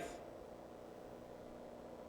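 Quiet room tone in a pause between sentences of a sermon: a faint, steady background hum and hiss.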